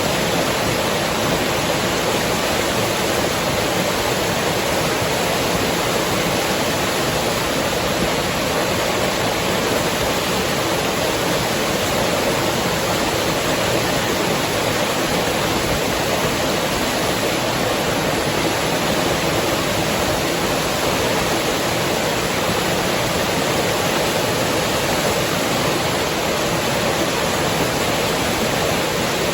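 River water rushing steadily: a constant, even wash of noise with no birds or other distinct sounds over it.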